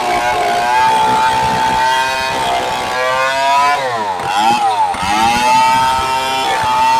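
STIHL 070 two-stroke chainsaw running at high revs, its pitch dropping sharply about four seconds in and climbing back up a second later.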